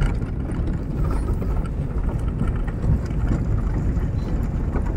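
Steady low rumble of a car driving on an unpaved gravel road, heard from inside the cabin: tyre and road noise mixed with the engine.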